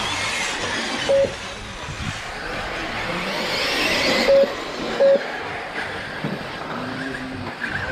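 Radio-controlled buggies racing, their motors giving a high whine that rises and then cuts off about four seconds in. Three short beeps of one pitch, from the lap-timing system reading a car's transponder as it crosses the line.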